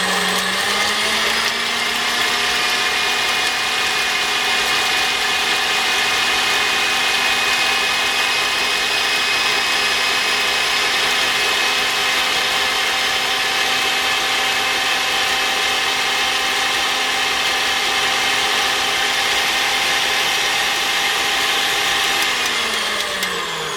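Stand mixer with its whisk attachment beating egg whites at high speed. The motor whine rises as it speeds up at the start, holds steady, and winds down near the end.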